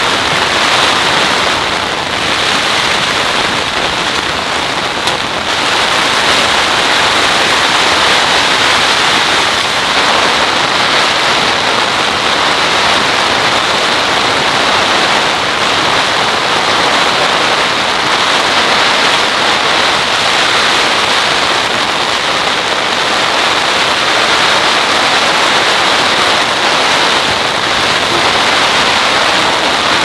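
Heavy rain pouring down, a dense steady hiss that swells slightly about six seconds in.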